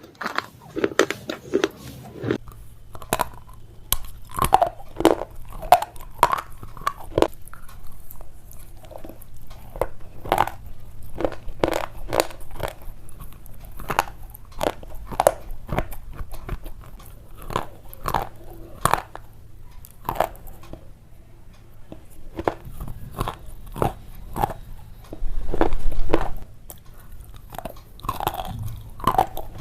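Slate pencil being bitten and chewed close to the microphone: a run of sharp, irregular crunches, several a second, with softer chewing between them.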